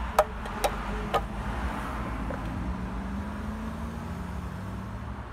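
Three short pops about half a second apart, lips puffing on a corncob pipe to keep it drawing, over a steady low hum of traffic.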